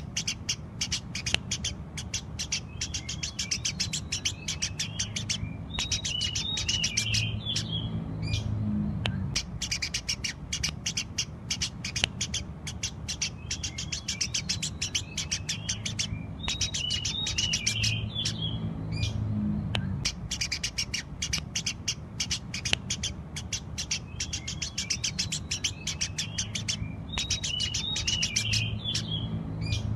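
Eurasian tree sparrows chirping in a fast, unbroken stream of sharp high chirps over a steady low hum. The same run of chirping repeats about every ten seconds, as in a looped recording.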